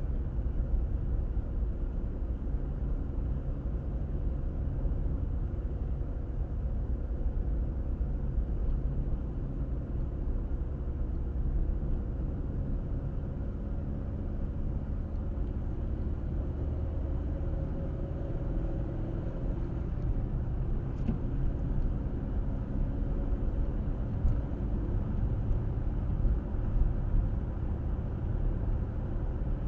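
Steady low rumble of a car driving on the road, tyre and engine noise with faint humming tones that swell slightly about halfway through.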